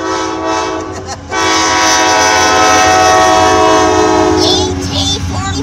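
CSX ET44AH locomotive's air horn sounding for a grade crossing: a shorter blast ending about a second in, then a long blast of about three and a half seconds, over the low rumble of the passing locomotive.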